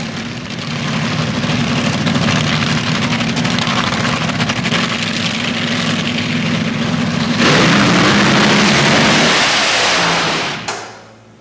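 Race-truck engine running loud and steady, then revving harder with a sudden jump in level about two-thirds of the way through, before fading out near the end.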